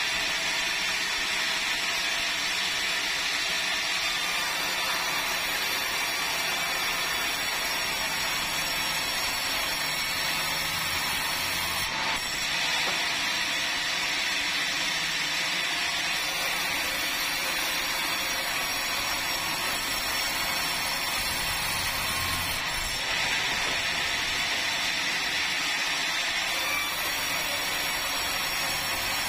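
Power saw cutting through a red meranti log, a steady unbroken run of sawing noise.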